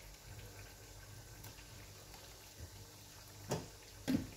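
A metal spoon taps twice, sharply, near the end as yogurt is spooned from a tub into an aluminium karahi of cooking chicken. Underneath is a faint low hum.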